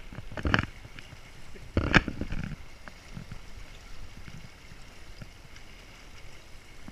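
People wading through a shallow flowing river: water sloshing and splashing around legs, with two louder splashes in the first two seconds, then the steady wash of the current.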